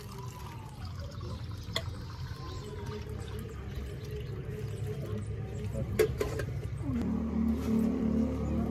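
Water running from a plastic water cooler's tap into a steel cup, with a couple of sharp metal clinks. A low steady drone comes in near the end.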